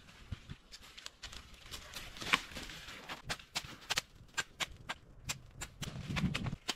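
Irregular sharp clicks and knocks, a dozen or more, with a louder crack about two seconds in and a dull thump near the end.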